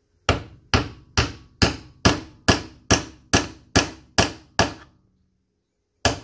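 Hammer striking a steel pin punch in steady taps, about two a second, driving the pin through a roller-cam distributor gear into its shaft. After about eleven taps there is a pause of about a second, and the tapping starts again near the end.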